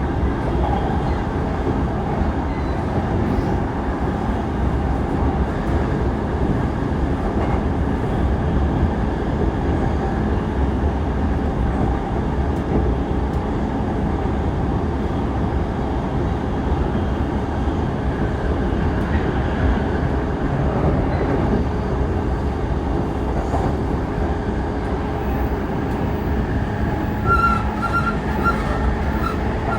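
Interior running sound of a JR East E233-3000 series electric multiple unit travelling at speed: a steady rumble of wheels and running gear. Near the end a short run of repeated high ringing tones comes through.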